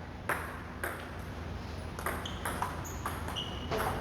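Table tennis ball being struck by paddles and bouncing on the table in a rally: sharp clicks in quick, irregular succession, several with a brief high ping after them, coming thicker after about two seconds.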